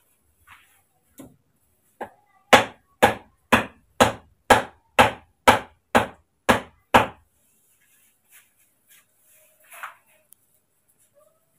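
A hammer striking the top of an upright bamboo pole: ten sharp, evenly spaced blows, about two a second, after one lighter tap.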